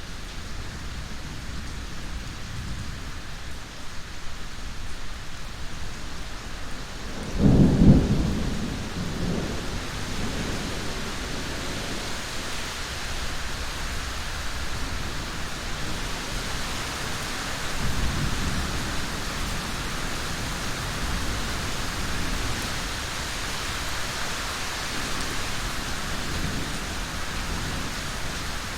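Steady rain with two peals of thunder: a loud, low rumble about seven seconds in, and a softer rumble around eighteen seconds in.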